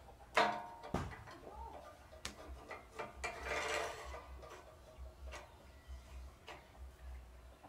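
Steel slide plate of a homemade lathe carriage worked by hand on its hand-scraped ways: metallic clicks and knocks, the loudest with a short ring about half a second in, and a brief metal-on-metal sliding scrape about three and a half seconds in. A low steady hum runs underneath.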